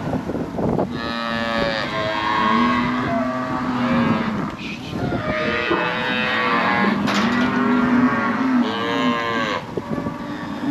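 Cattle bawling, one long call after another with hardly a break, several animals overlapping.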